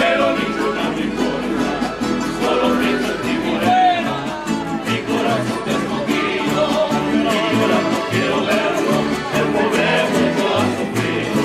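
A mariachi band playing: rhythmic strummed guitars over a stepping bass line, with a melody and some singing on top.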